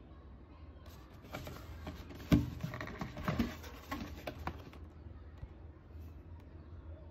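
Cardboard shoebox being handled: the lid and box rustle and scrape against each other, with one sharp knock a little over two seconds in, the loudest sound, and several smaller taps until about five seconds in. A low steady hum runs underneath.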